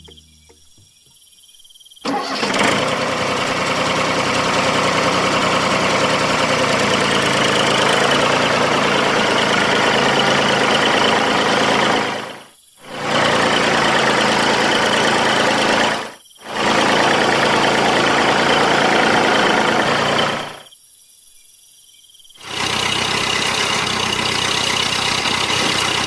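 A motor running steadily with an engine-like sound. It starts abruptly about two seconds in, cuts out briefly twice, then stops for about two seconds and starts up again near the end.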